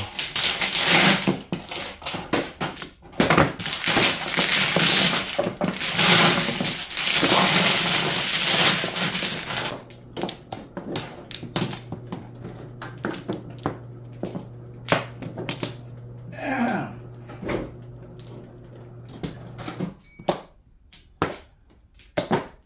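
Mahjong tiles clattering loudly as they are swept into an automatic mahjong table for about ten seconds. The table's motor then hums steadily for about ten seconds while it shuffles and raises a new set of tiles. Near the end come separate clicks of tiles being handled.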